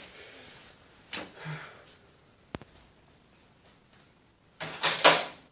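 Hand tools being handled while he swaps to a different wrench: a single sharp click about two and a half seconds in, then two loud clattering knocks close together near the end.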